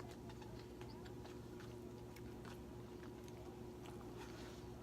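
Faint chewing and small mouth noises from eating spaghetti, with scattered soft clicks over a low steady hum.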